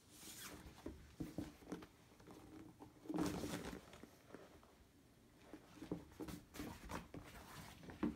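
Faint handling noise from a soft natural-rubber hip boot being turned over and flexed in the hand: irregular rubbing and rustling. The loudest stretch comes about three seconds in, and there is a sharp tap near the end.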